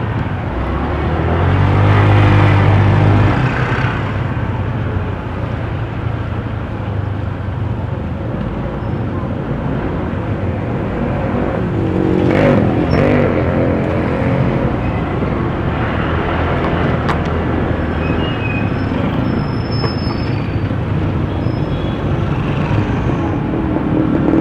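Road traffic: motor vehicle engines running and passing by in a steady wash of traffic noise, one passing engine loudest a couple of seconds in, with a sharp click about 17 seconds in.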